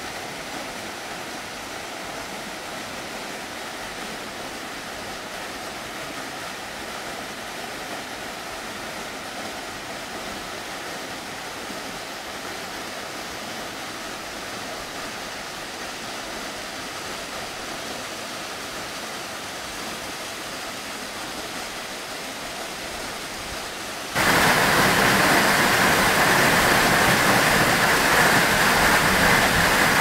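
Waterfall water rushing steadily over rock. About 24 seconds in it changes abruptly to a much louder, fuller rush, as of a waterfall heard close up as it plunges into a pool.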